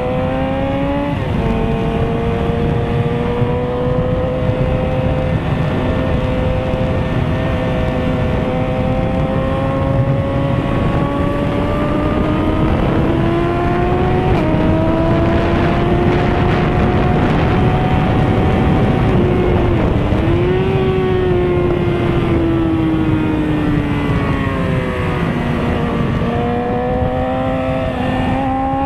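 Litre-class sport motorcycle engine running under way, its pitch climbing slowly through long pulls. There is an upshift about a second in, a jump in revs about halfway, and a short lift off the throttle and back on about two-thirds through. Heavy wind rush on the microphone runs underneath.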